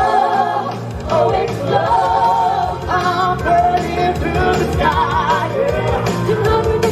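Music: a pop song sung by several voices together over a backing track, with long held notes that waver in pitch.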